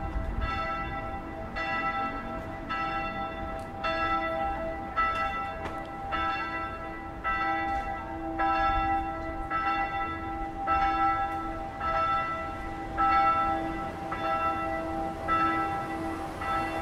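Church bells ringing: several bells of different pitch struck one after another in a steady sequence, about one strike a second, each note ringing on into the next.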